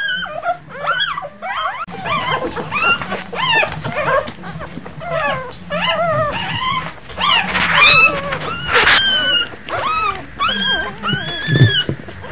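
Newborn puppies squeaking and whimpering: many short, high-pitched cries that rise and fall, overlapping and coming several a second.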